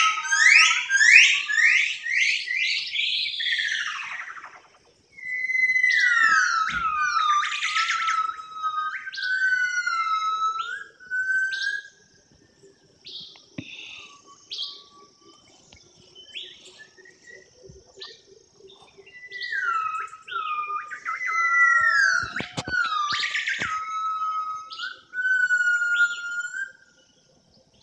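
A bird singing loud whistled phrases of quick rising and falling notes, in two long bursts with quieter scattered calls between them.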